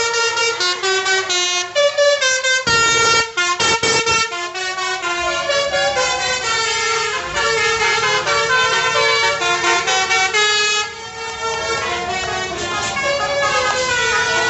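Tour bus's basuri musical air horn playing a melody in quick stepped notes. A few short noisy bursts come about three to four seconds in.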